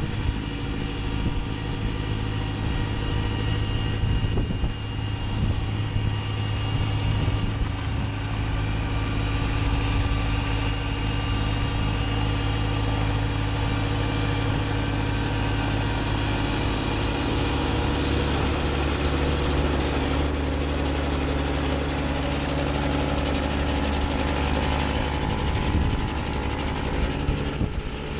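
Kubota B2601 compact tractor's three-cylinder diesel engine running steadily under load while driving its PTO snowblower, with a steady high whine over the engine. About two-thirds of the way in, the low engine note shifts to a different pitch.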